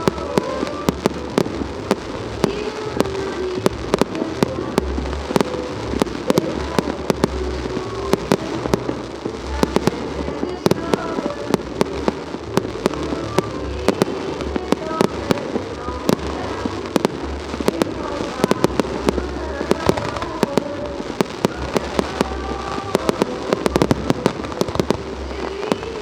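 Fireworks going off: a dense, continual run of sharp bangs and crackles, several a second, over a low rumble.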